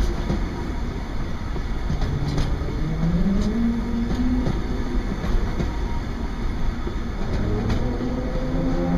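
Container wagons of a freight train rolling past: a steady low rumble with scattered clicks of wheels over the rails. A low tone rises in pitch about two seconds in and sounds again near the end.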